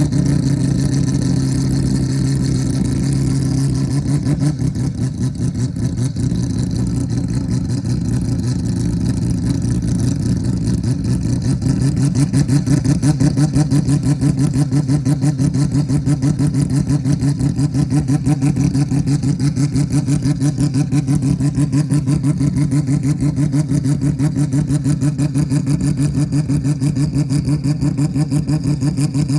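Mazda 767B race car's four-rotor rotary engine running at a steady, loud idle, its note pulsing in an even rhythm.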